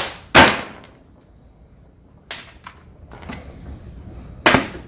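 Sharp metal clanks and knocks from handling the steel housing and clamp band of an air brake chamber being taken apart. Two come close together at the start, a lighter one falls a little before halfway, and a ringing clank comes near the end.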